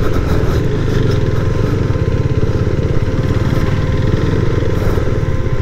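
KTM RC 390's single-cylinder engine running at a steady pace as the motorcycle rides on.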